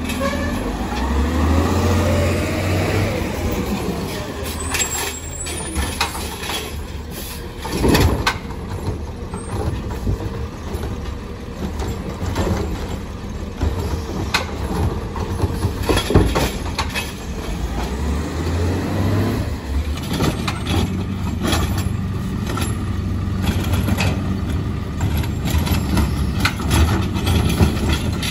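Natural-gas CCC refuse truck with a Heil Rapid Rail automated side-loader arm running, its engine revving up and down in pitch as it drives the hydraulics to lift and dump carts. Sharp clunks of a cart and its load come about 8 and 16 seconds in.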